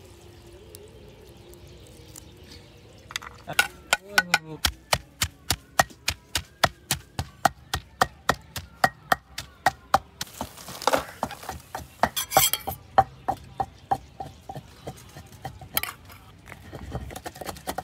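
Kitchen knife chopping on a cutting board in a steady rhythm of about three strokes a second, starting about three seconds in, with a couple of brief scrapes midway.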